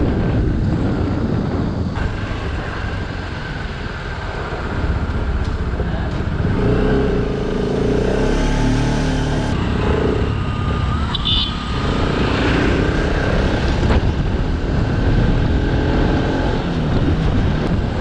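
Motorcycle engine running under way, mixed with a steady rush of wind and road noise on the bike-mounted microphone; the engine note comes through most clearly for a few seconds in the middle.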